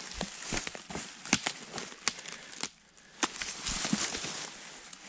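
Footsteps crunching through dry leaf litter and brush, with sharp twig snaps and clicks; the steps pause briefly just before the three-second mark, then brush rustles against clothing.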